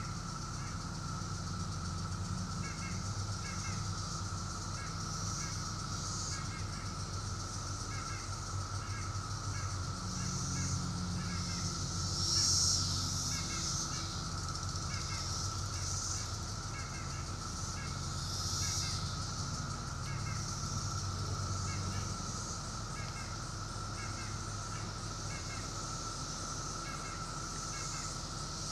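Chorus of 17-year periodical cicadas, a continuous steady drone, with short chirping calls repeating about twice a second over it. A higher hiss swells twice, and a low hum runs beneath.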